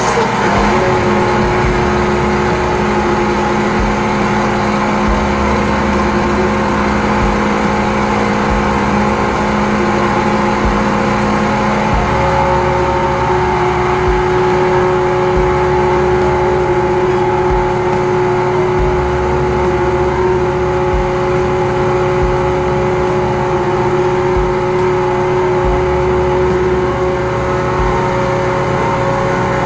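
High-pressure drain jetting machine running steadily under load as the jet hose is fed into a grease-clogged drain line, its tone changing about twelve seconds in.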